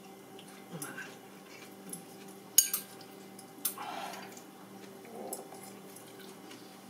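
Chopsticks clicking and clinking against ceramic bowls and a glass serving platter during eating, with one sharp clink about two and a half seconds in. A short pitched sound near the middle and a steady low hum sit under it.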